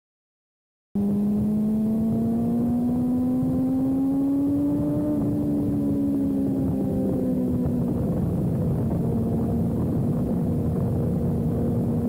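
Sport motorcycle engine running hard at track speed, heard from an onboard camera over wind rush. It cuts in after a second of silence, its pitch rises slowly for a few seconds, eases back, then holds steady.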